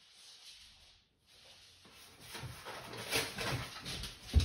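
A dog rustling and crinkling paper, growing louder over the last couple of seconds, with a heavy thump near the end.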